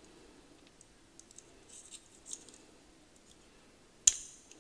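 Small screwdriver working a tiny, snug screw in a vintage Thorens lighter's claw mechanism: faint scrapes and light metal ticks, then one sharp metallic click about four seconds in.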